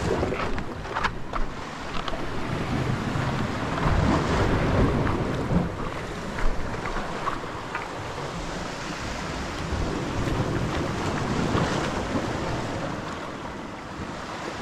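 Wind buffeting the microphone over the wash of sea waves, the level swelling and easing, with a short sharp knock about a second in.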